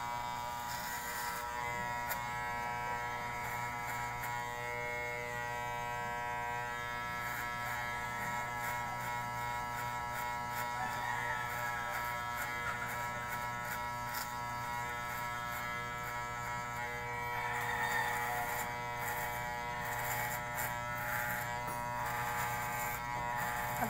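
Corded electric hair clippers running with a steady buzz as they cut short hair at the side and back of the head.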